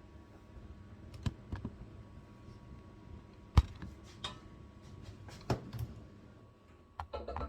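Scattered clicks and knocks of objects being handled and set down, the loudest about three and a half seconds in and a quick cluster near the end, over a low steady hum.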